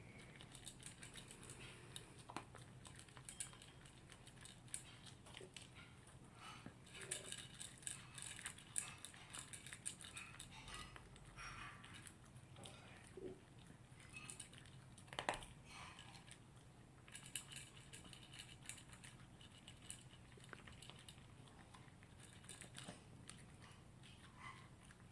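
Toy poodle eating from its bowl: faint, irregular crunching and clicking of chewing and of the food dish.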